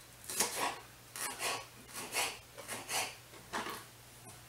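Kitchen knife slicing through a bell pepper on a cutting board: a run of short crunching, scraping cuts, roughly one every half second.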